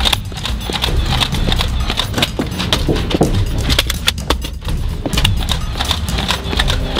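Rapid, irregular clacks and pops of Nerf foam-dart blasters firing back and forth, with darts smacking against a car's body and windshield.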